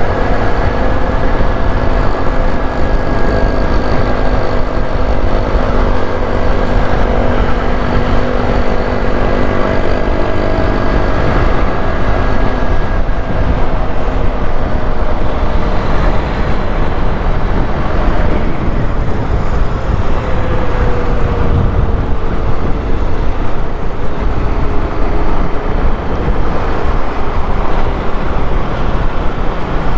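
Honda XRE 190's single-cylinder four-stroke engine running while the motorcycle is ridden, its pitch holding steady and then shifting with the throttle about two-thirds of the way through, over a heavy wind rumble on the microphone.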